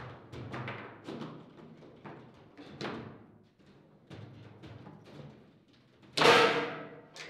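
Table football play: the hard ball knocks against the players and rods in a run of separate sharp clacks and thuds. About six seconds in, a much louder bang rings out as a shot is struck into the goal.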